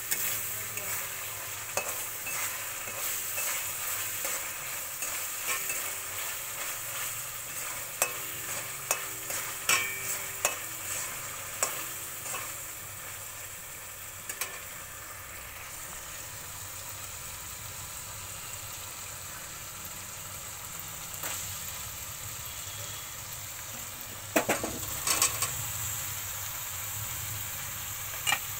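Spice paste with baby corn and paneer sizzling in a kadhai, with a steel spatula stirring and scraping it and clinking against the metal pan. The clinks are frequent at first, then thin out to a steady sizzle, and a few sharp clinks come again near the end.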